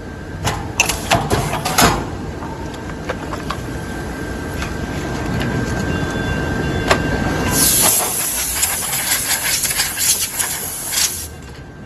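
Honeycomb paperboard cutting and punching machine working. A quick run of sharp clacks comes about a second in, then steady machine noise with a thin whine. A loud hiss with rapid clicking follows for about four seconds and stops shortly before the end.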